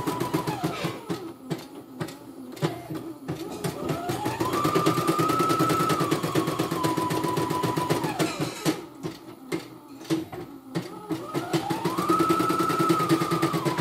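CNY computerized embroidery machine stitching, with a fast, even needle beat. Its motor whine rises and falls in pitch as it speeds up and slows down. Twice, about a second in and again about eight seconds in, it drops to a quieter, slower run before speeding back up.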